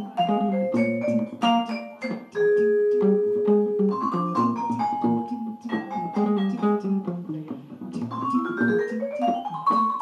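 Band playing an instrumental piece of quick struck and plucked notes over a steady low line, with a rising run of notes near the end.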